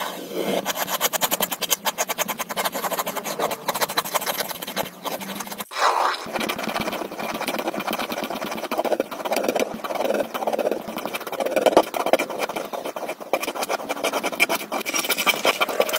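A mechanical pencil and then a fine-tip ink pen scratching across paper in rapid, closely repeated strokes, with a short break about six seconds in.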